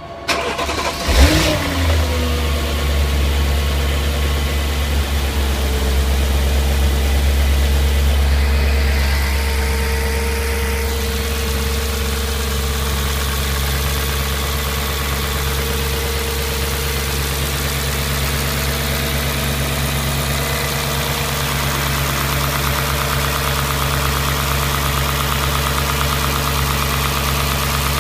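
Audi S4 B6's 4.2-litre V8 engine starting about a second in, flaring up briefly and then settling into a steady idle.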